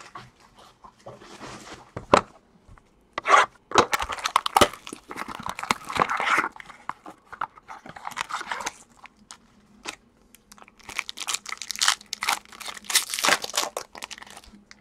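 Plastic wrapping on a sealed small box of trading cards crinkling and tearing as hands peel it off. It comes in several bursts of crackling with sharp snaps, separated by short pauses.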